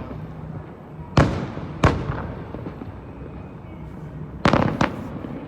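Aerial fireworks shells bursting: two sharp bangs a little over a second in, then a quick cluster of bangs near the end.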